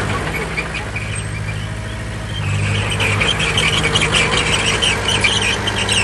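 Heavy diesel earthmoving machine, likely the bulldozer, running steadily; about two and a half seconds in the engine gets a little louder and a high metallic squealing comes in and continues.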